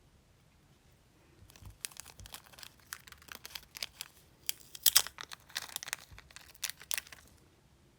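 Irregular crinkling and crackling of something handled close by, starting about one and a half seconds in and stopping about a second before the end, loudest a little past the middle.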